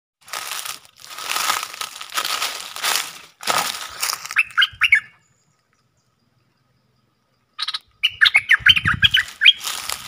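Leaves and branches rustling in several bursts, then a caged decoy bulbul calling in quick chattering notes: a short phrase about four and a half seconds in and a longer run from about eight seconds in.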